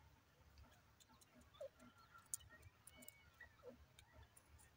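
Near silence: faint outdoor background with a few soft, short chirps and scattered faint clicks.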